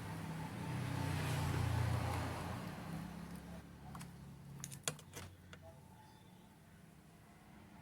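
A low rumble, then a quick run of sharp clicks about four to five seconds in: multimeter probes tapping on the TV power-supply board's rectifier diodes in buzzer mode. No continuity beep sounds, as the diodes are not shorted.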